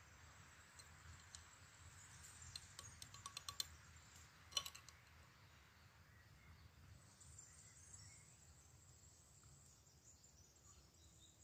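Near silence with a faint outdoor background. A run of small, light ticks comes a few seconds in, then one sharper tick about four and a half seconds in: a metal spoon and sugar against a glass jar as sugar is spooned in.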